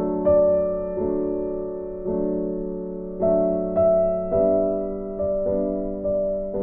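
Background piano music: soft chords struck about once a second, each ringing and slowly fading.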